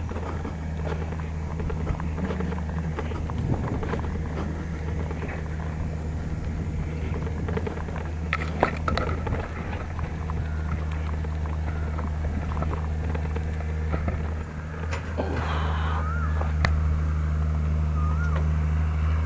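Bicycle rattling along a bumpy dirt track, with scattered clicks and knocks from the frame and tyres on the rough ground, a cluster of them about eight seconds in, over a steady low drone.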